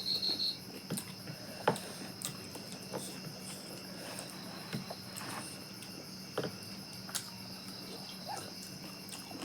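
Crickets chirring steadily in the background, with a short trill right at the start. Scattered short clicks and taps sound over it.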